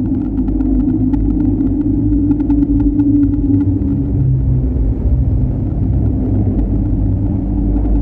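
A low, steady rumble with a constant hum and faint scattered ticks, presented as a Mars surface recording from a NASA rover's microphone.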